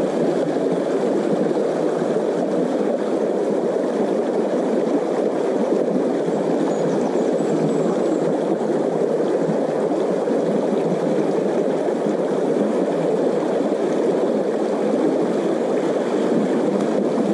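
Shallow river rushing and gurgling over rocks in a riffle, a steady, unbroken water noise close to the microphone.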